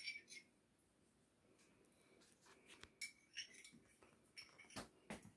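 Near silence, broken by a few faint clinks and taps of a spoon against a cup and a steel mixing bowl as barbecue sauce is dipped out.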